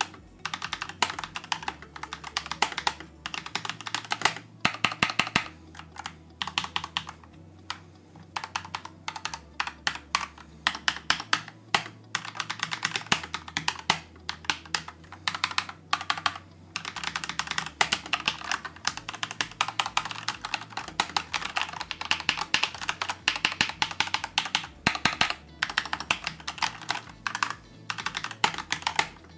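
Typing on an Akko 3087 mechanical keyboard with Akko's own pink linear switches and PBT keycaps: rapid runs of keystrokes, clacking steadily, with a few short pauses between runs.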